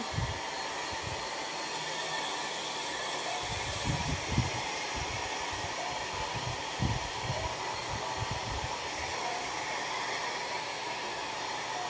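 Handheld hair dryer blowing steadily as it dries hair, with a few short low bumps a few seconds in.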